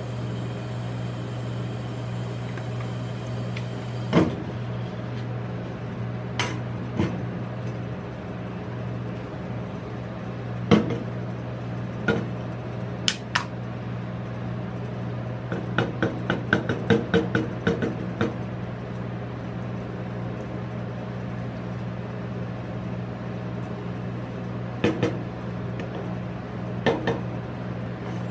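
Steady low hum of a rolled-ice-cream cold plate's refrigeration unit, with scattered knocks and clicks from a drink can being handled on the steel plate. About halfway through, two sharp clicks as the can's ring-pull is opened, followed by a quick run of clicks.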